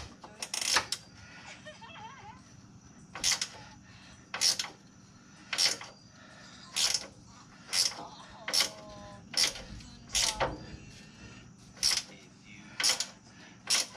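A 13 mm flexible stubby ratcheting wrench clicking in short bursts, about once a second, as it turns the top mounting bolts of a rear shock absorber.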